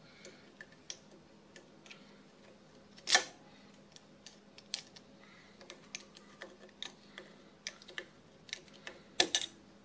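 Irregular light clicks and ticks of a flat screwdriver turning a worm-drive hose clamp tight on fuel tubing, with a louder knock about three seconds in and a quick pair of sharper ones near the end.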